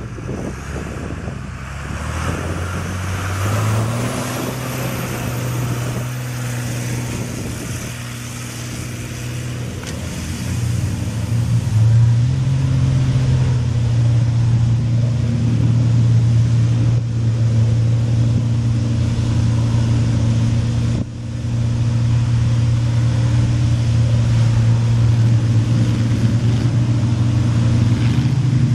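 Engine of a mega mud truck (a limousine body on a lifted chassis with giant tires) running under throttle as it drives off across dirt. Its pitch steps up a couple of times in the first half, then it runs louder and steady, dropping out briefly about three quarters of the way through.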